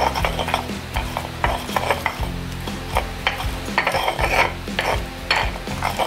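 Pestle (ulekan) grinding shallots, garlic and shrimp into a coarse paste in a mortar (cobek): repeated, irregular rubbing and scraping strokes. Low background music runs underneath.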